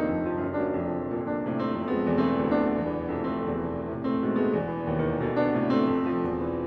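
Steinway & Sons concert grand piano played solo in a dense, loud passage of full chords and quick-changing notes, swelling in waves.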